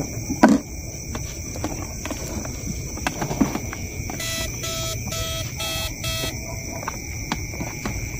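Night insects trilling steadily, with a few soft knocks. About four seconds in comes a run of about five short buzzing pulses at one pitch, roughly two a second.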